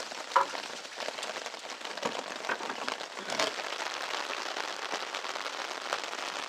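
Rain pattering steadily on an umbrella canopy held overhead, with scattered sharp drop ticks and a few louder taps.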